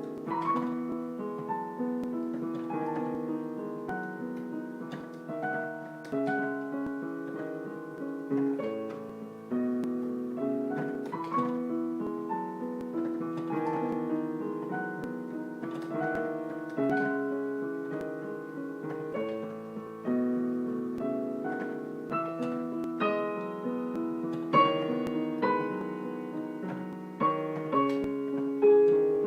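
Background piano music: a slow melody of struck notes over sustained chords.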